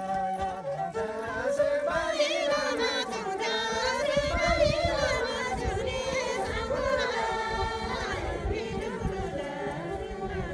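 Group of women singing a Karmarong folk song together, holding long notes that rise and fall.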